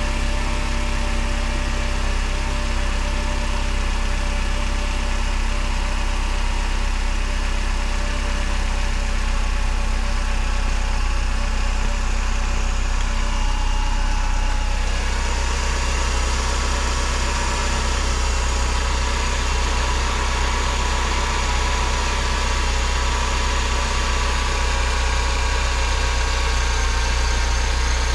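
Mercedes M111 four-cylinder engine idling steadily, its serpentine belt running on a shorter belt that bypasses the A/C compressor pulley. About halfway through the sound changes, and a higher steady whine comes in.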